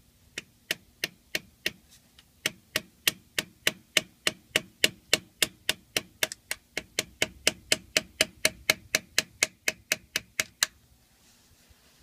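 Rapid, evenly paced hammer taps on a steel tool held against the PTO oil seal of a John Deere 6400 tractor, about three taps a second, each ringing briefly, with a short break near the start.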